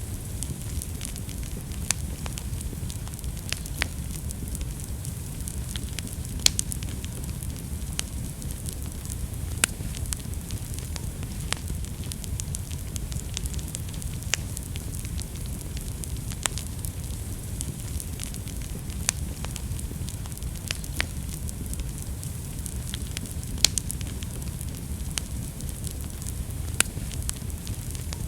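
Wood fire burning in a fireplace: a steady low rumble and hiss with irregular sharp crackles and pops, a few louder snaps scattered through.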